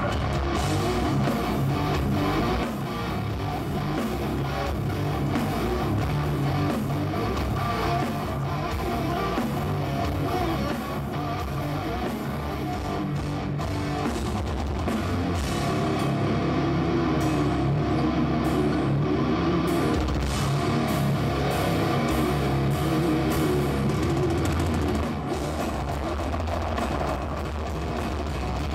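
Heavy metal band playing live, electric guitars and a drum kit going hard.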